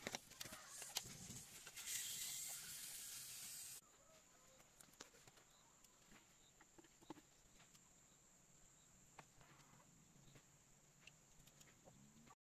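Wood fire crackling with sharp snaps, then a steady hiss that cuts off suddenly about four seconds in. After it, a faint quiet background with a thin, steady high insect whine and occasional small clicks.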